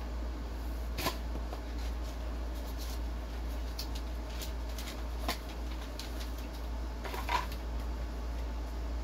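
Steady low hum with a few scattered light clicks and taps over it; the clearest come about a second in, a little after five seconds, and near seven and a half seconds.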